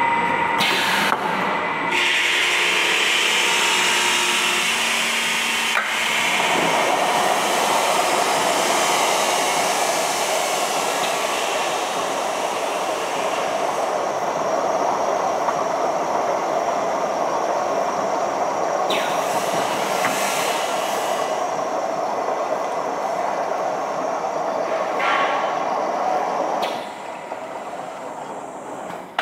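Product-wrapping packaging machine running, a steady mechanical rush that drops in level near the end.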